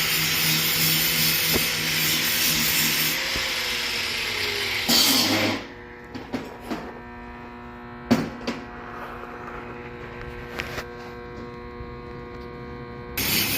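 Metalworking on an alloy wheel rim: a loud steady hiss for about five seconds, then a quieter machine hum with a few sharp clicks, and the loud hiss starts again near the end.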